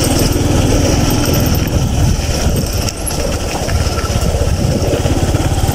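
Motorcycle engine running steadily while riding slowly over a rough unpaved gravel track, with road and wind noise on the handlebar-mounted microphone.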